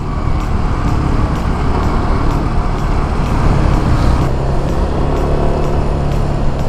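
Small-displacement motorcycle engine running steadily at cruising speed, with wind and road noise rushing over the rider-mounted microphone. The rush eases a little about four seconds in.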